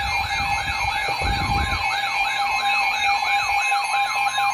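Electronic emergency alert tone: a steady two-note tone with a siren-like sweep rising and falling about four times a second over it.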